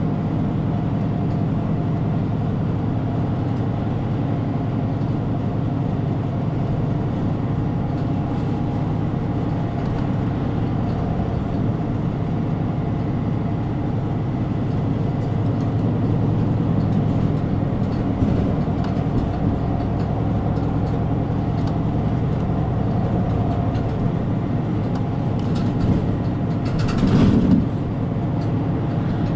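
Inside a route bus under way: the diesel engine runs steadily with road and cabin noise. A brief louder rush of noise comes near the end.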